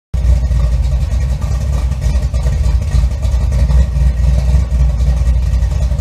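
Loud intro sound effect: a steady low rumble with crackling on top, which cuts off suddenly at the end.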